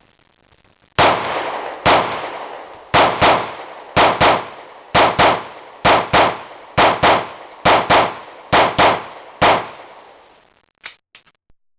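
Compensated Glock 19C 9mm pistol firing about seventeen shots, mostly in rapid double taps about a quarter second apart, one pair roughly every second. A few faint clicks follow near the end.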